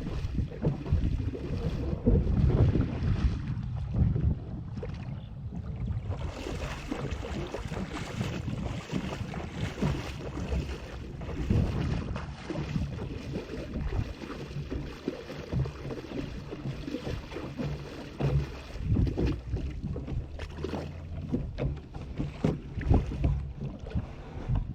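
A kayak being paddled on open water, with wind gusting on the microphone.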